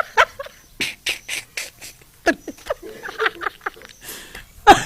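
A person making short, breathy vocal sounds in scattered bursts, with a louder voiced one near the end.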